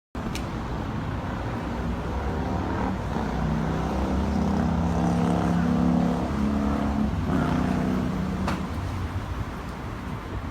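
A motor vehicle passing on a road over steady traffic noise. Its engine sound grows to its loudest around the middle, then fades away.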